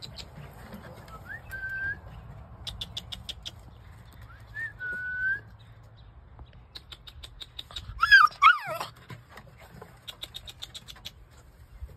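Pit bull–type puppies whining: two short high whines in the first half, then a louder, wavering yelp-like cry that falls in pitch about eight seconds in. Bursts of rapid high ticking chirps come and go in between.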